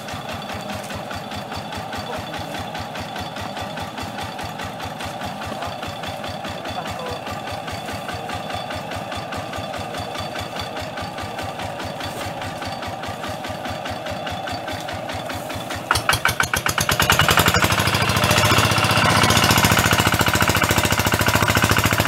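Two-wheel tractor's engine idling with a fast, steady knock, then revving up much louder about sixteen seconds in.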